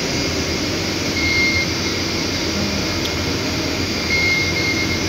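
Steady background hum and hiss of shop ambience, a continuous even noise with a few faint brief high tones.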